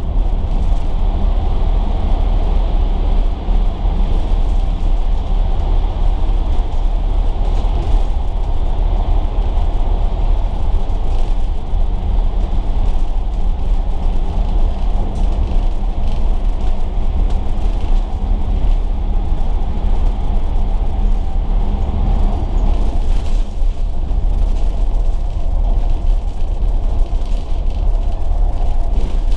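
Volvo B9TL double-decker bus under way: a steady diesel engine drone with road rumble, the engine note shifting about two-thirds of the way through.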